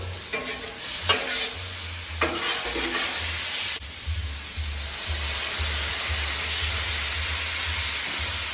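Food sizzling and frying on a Blackstone flat-top griddle, steady, with a few short scraping strokes in the first four seconds.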